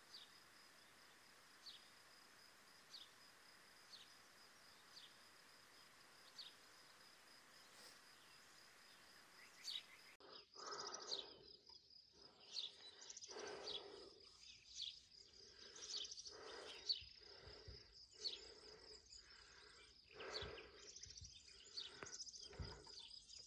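Faint outdoor ambience with a steady high insect trill. Light chirps come about once a second at first, and from about ten seconds in there is a string of irregular soft knocks and rustles.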